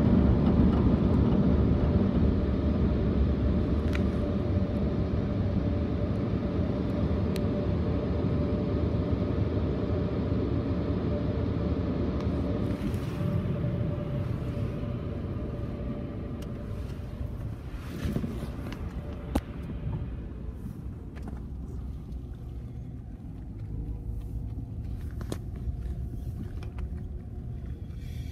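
Car cabin rumble as the car drives slowly out of an automatic car wash bay and across the lot. A steady whine fades out about halfway through; after that the rumble is quieter, with a couple of clicks.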